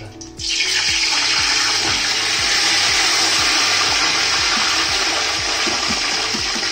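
Wet, pre-soaked rice tipped from a colander into a pot of hot ghee, sizzling loudly. The steady sizzle starts suddenly about half a second in.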